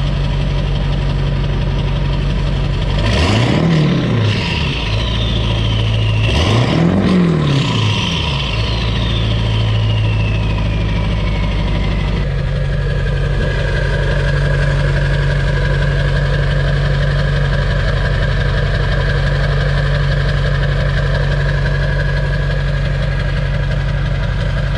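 Ford 7.3L Powerstroke V8 turbodiesel idling through a new 5-inch turbo-back exhaust. It is revved briefly twice, and after each rev the turbo's whistle winds down. It then idles steadily.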